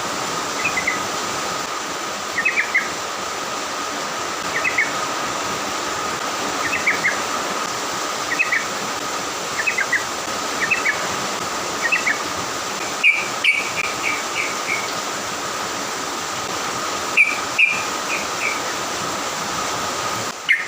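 Yellow-vented bulbul (trucukan) singing short, bubbly chirping phrases every second or two. The song runs over a steady high hum and a background hiss.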